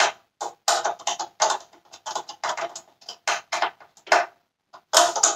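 Irregular plastic clicks and rattles, a few a second, from the plastic cyclone cone assembly of a Dyson Cinetic Big Ball vacuum being handled and probed by hand.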